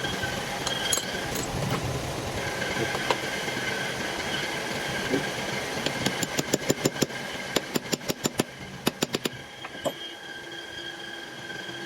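Steady whine of a running workshop machine, joined from about six seconds in by a quick run of sharp metallic taps that lasts some three seconds.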